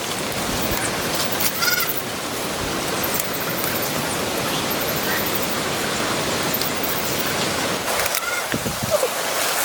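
Steady rushing noise with a few faint bird chirps.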